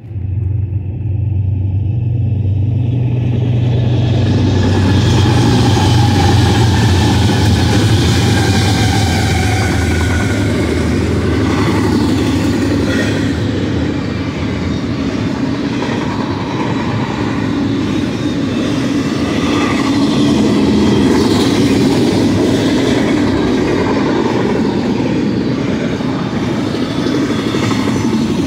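BNSF double-stack intermodal freight train passing at speed. A deep drone from its GE diesel locomotives dominates the first ten seconds or so, then gives way to the steady rolling noise of the well cars on the rails.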